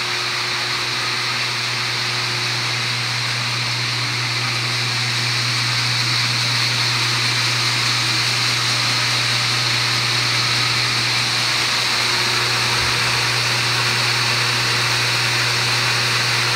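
USC AT500H loss-in-weight seed treater running: a steady machine hum with an even hiss over it, rising slightly in level about five seconds in.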